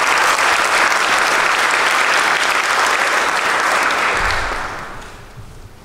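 Audience applauding, fading out over the last second or two.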